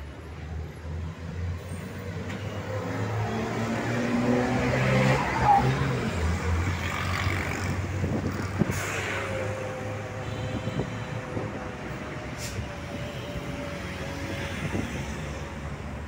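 Road traffic: motor-vehicle engines passing, with one vehicle swelling to its loudest about five seconds in and then fading.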